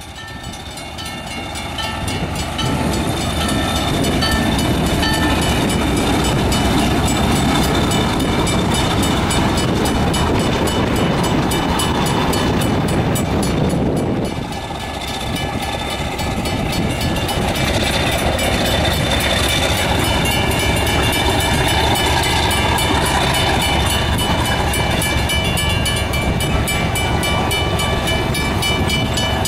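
Fillmore & Western passenger train rolling past a grade crossing: the diesel locomotive's engine and the cars' wheels running over the rails, with the crossing signal's bell ringing steadily.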